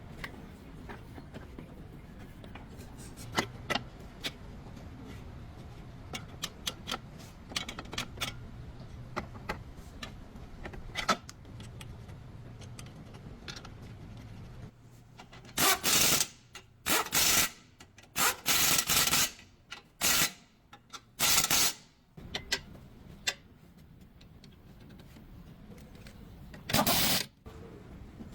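Scattered metal clicks and taps of hand tools during front-axle CV joint work, then, from about halfway, several loud bursts of a rattling power tool, each half a second to a second long, the last near the end.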